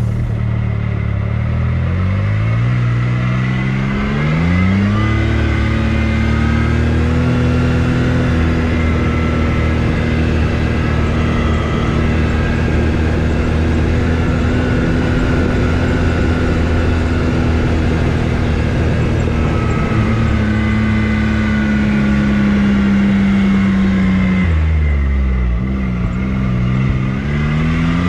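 Off-road vehicle engine pulling away and rising in pitch over the first few seconds, then running steadily at speed. Late on it eases off briefly and picks up again, rising in pitch near the end.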